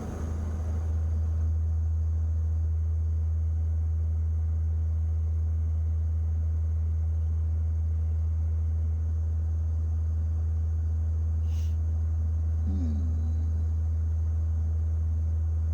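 Steady 80 Hz sine test tone from a tone generator playing through a truck's car audio system, subwoofer included: a loud, even low hum that comes up to full level in the first second or so. A short click comes about twelve seconds in.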